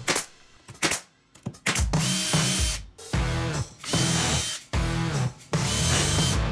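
A few sharp pops from a brad nailer, then a Ridgid 18V cordless drill driving screws into plywood in about five short bursts, its motor speeding up and winding down each time.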